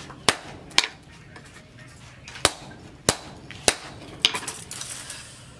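Hand hammer forging a red-hot steel cleaver blank on a small anvil: six sharp metal-on-metal blows at uneven intervals, then a quick run of lighter taps near the end.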